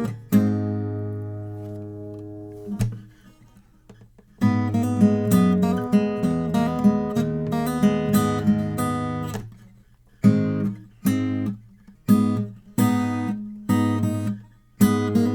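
Martin 00-28 Modern Deluxe acoustic guitar played through one microphone with no processing: a chord rings out and fades, then after a short pause a passage of picked and strummed notes, then about six single chords struck one after another, each left to ring and decay.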